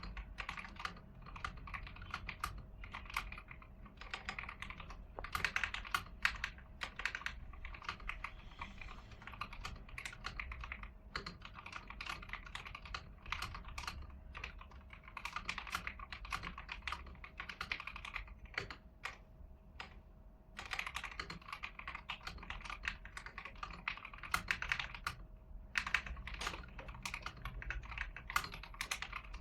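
Typing on a stock, unmodified AIGO A100 mechanical keyboard with yellow switches: a quick, continuous patter of key clicks, broken by a few brief pauses.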